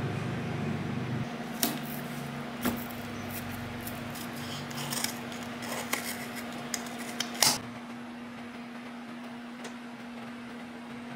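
Kitchen scissors snipping open the corner of a cardboard cream carton, a few sharp clicks and snips with the loudest about seven and a half seconds in, over a steady low hum.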